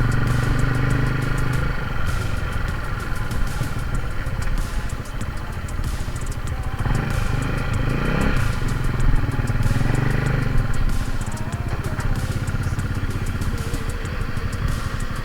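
Motorcycle engine running, with the revs rising and falling about halfway through.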